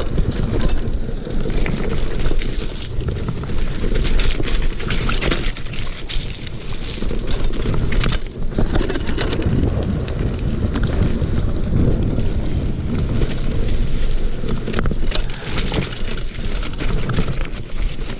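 Mountain bike descending a dirt forest trail at speed, heard from a GoPro on the rider: a low rumble of tyres on dirt with frequent rattles and knocks from the bike over rough ground, mixed with wind buffeting the camera's microphone.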